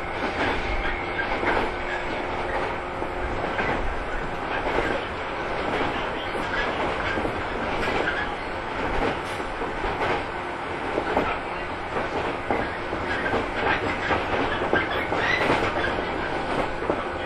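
Running sound inside the motor car (KuMoHa 115) of a 115-series electric train: wheels clicking over rail joints over a steady rumble and hum of the running gear, at a steady pace.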